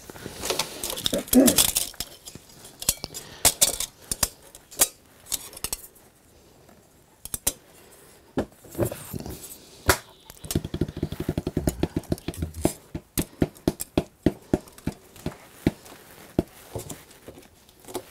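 Curved metal armour lames clinking and clattering against each other and the workbench as they are handled and fitted together, in scattered sharp clicks and knocks, with a quick run of rattling clicks a little past the middle.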